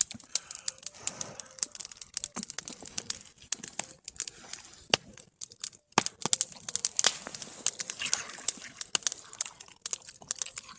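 Wood campfire crackling, with many sharp, irregular pops and snaps.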